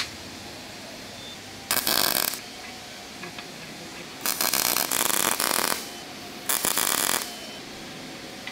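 Three short bursts of loud, harsh noise from a metalworking tool: about two seconds in, a longer one from about four to six seconds, and a brief one near the end.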